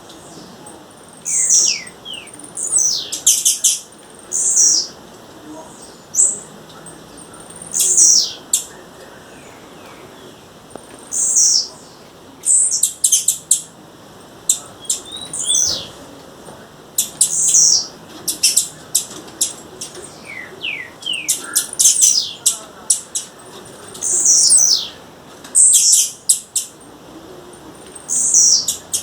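Female blue-black grassquit calling: short, high, sharp chirps and clicking notes, some sweeping downward, in separate bursts every one to two seconds.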